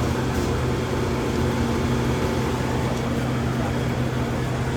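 Steady low machine hum over a constant rush of background noise, even in level throughout.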